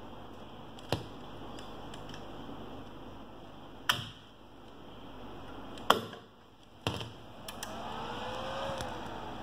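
About five sharp clicks over a steady hum while an ABB ACS355 frequency inverter is being powered up. Near the end a faint tone rises and falls.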